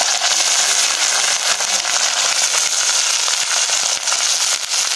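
Cut potato sticks sizzling and crackling in hot oil in an iron wok, as handfuls of raw potato are dropped in.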